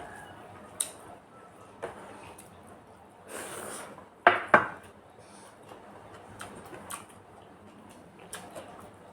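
Dishes and utensils clinking during a meal: scattered light clicks of plates and bowls being handled, a short scraping sound, and two sharp knocks a little past the middle that are the loudest.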